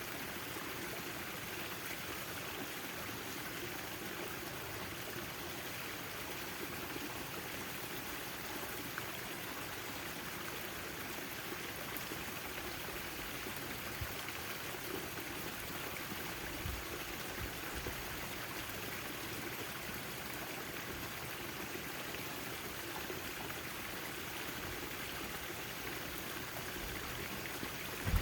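Backyard fountain: water splashing and trickling steadily.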